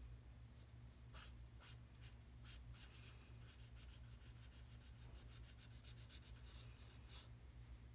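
Orange marker strokes rubbing faintly on paper: short, irregular colouring strokes, several a second, over a low steady hum.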